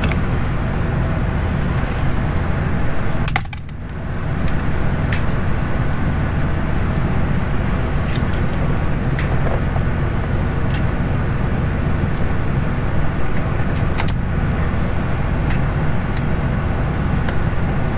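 Scattered light metallic clicks from hands working wire strippers and tiny terminal pins on an ignition coil harness, over a steady low rumble of background noise. The rumble dips briefly about three and a half seconds in.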